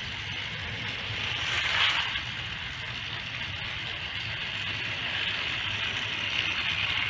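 Battery-powered toy trains whirring and rattling along plastic track, a steady high-pitched running noise that swells briefly about two seconds in.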